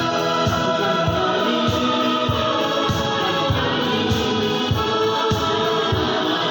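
Choir singing a church song together over an instrumental accompaniment, with a low beat about twice a second.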